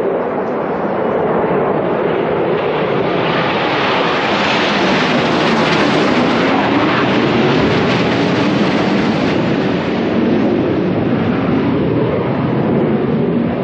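Loud roar of an aircraft passing over, its hiss swelling for several seconds in the middle and then easing off.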